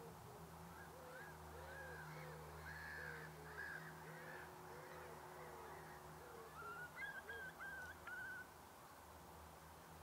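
Faint bird calls: a run of short, arched calls repeated every half second or so, then a quicker run of higher calls about seven seconds in, over a low steady hum.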